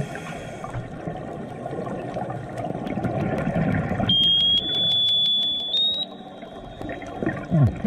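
Active sonar pulse heard underwater: about four seconds in, a steady high-pitched tone sets in over the low rush of underwater noise, holds for about two seconds while stepping slightly higher, then fades.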